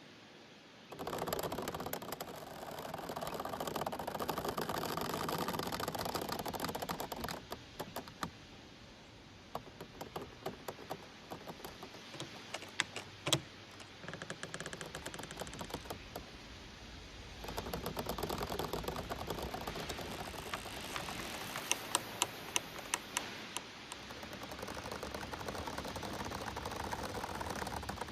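Giant bamboo stems swaying in the wind, rustling and creaking and clicking as they rub against each other. The rustle comes and goes in swells, with runs of rapid sharp clicks through the middle and again later.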